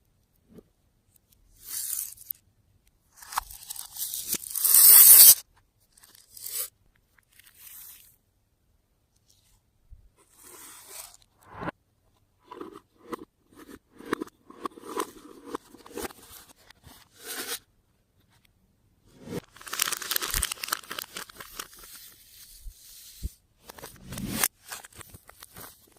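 Slime being handled and mixed with crunchy add-ins, making crunching, crackling and tearing noises in irregular bursts. The loudest burst comes about five seconds in, and there is a run of quick squishy pops midway.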